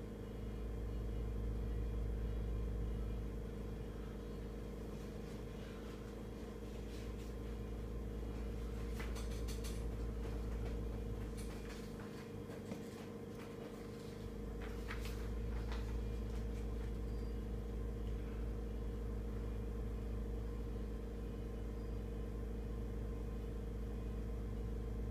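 Small gas burner flame burning steadily against a fire-retardant-treated pine board during a flame test: a low, steady rumble with a constant hum underneath that fades briefly about halfway through, and a few faint ticks.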